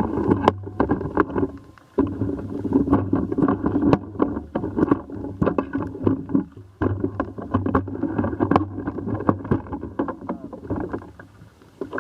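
Pool water sloshing and slapping against a camera's microphone, loud and distorted with many sharp crackles. It comes in long bursts with brief lulls about two seconds in, about six and a half seconds in, and near the end.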